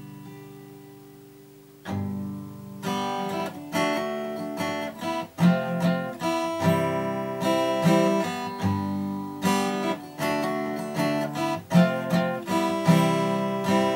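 Acoustic guitar played by hand: a chord left ringing and fading, a new chord struck about two seconds in, then steady rhythmic strumming from about three seconds in.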